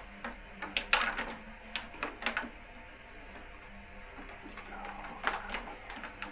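Irregular clicks and light knocks from hands handling wiring and plastic parts on a motorcycle. A cluster of them comes in the first couple of seconds and another near the end, over a faint steady hum.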